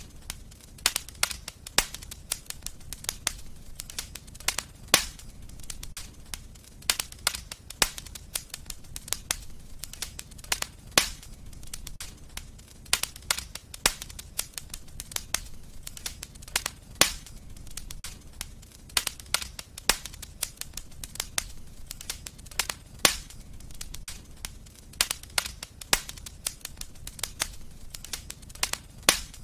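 Fireplace fire crackling: frequent sharp pops and snaps at irregular intervals over a low steady rumble.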